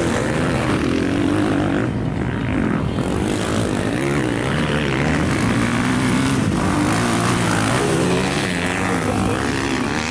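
Motocross bike engines running hard, their pitch rising and falling with throttle and gear changes.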